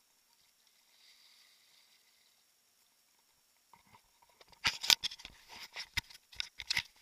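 Fingers touching and rubbing the camera housing: after near quiet, a run of irregular sharp clicks and scrapes starts about four seconds in.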